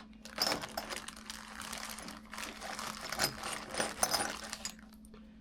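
Small hand tools being rummaged through and handled: a run of irregular clicks and clatters that stops about a second before the end.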